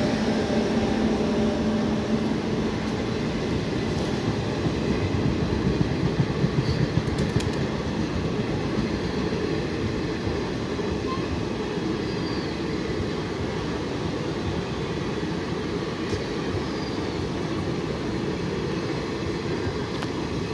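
An Indian Railways express's passenger coaches running past at speed, their wheels rumbling steadily on the rails. A low hum fades out in the first couple of seconds, and the sound eases slowly as the train goes by.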